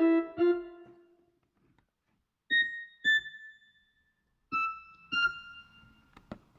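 OPPO phone ringtone, a synthesized electric-piano melody. A run of notes fades out about a second in, then two high chiming notes sound, followed by two slightly lower ones, each ringing and dying away. A short click comes near the end.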